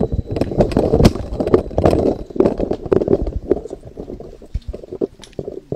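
Loud, muffled rumbling and irregular low thumps: wind buffeting and handling noise on a handheld camera's microphone as it moves through a jostling crowd.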